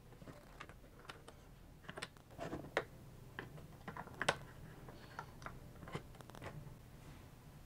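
Irregular small clicks and taps of an 18650 lithium-ion cell being handled and seated in a plastic sliding battery holder, with the sharpest knocks about three and four seconds in.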